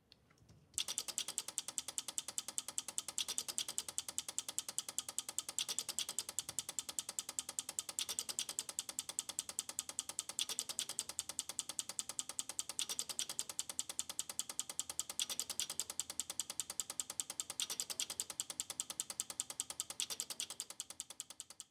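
Dozens of small DPDT signal relays on a relay computer's prototyping board clicking rapidly and evenly as the computer runs under clock. The clicking starts about a second in, swells briefly every couple of seconds, and fades away near the end.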